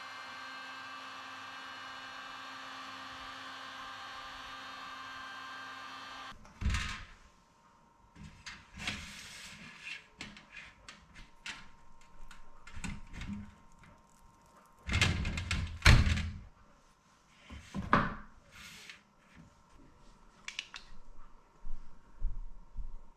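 A small electric kitchen appliance motor running at a steady pitch, stopping abruptly about six seconds in, followed by scattered knocks and clatters of utensils and containers being handled and set down.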